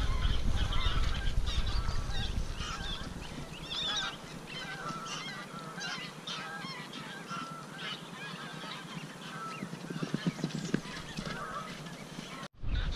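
A large flock of wild geese honking in flight, many overlapping calls at once. The sound cuts off abruptly near the end.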